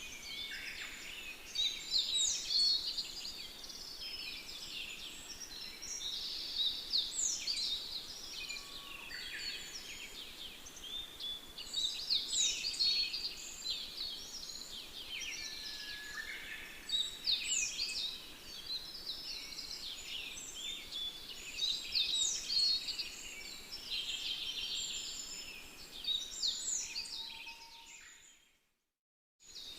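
Dense chorus of high, bird-like chirps and twitters, with the busiest bursts coming about every five seconds. It fades out shortly before the end and goes silent for about a second.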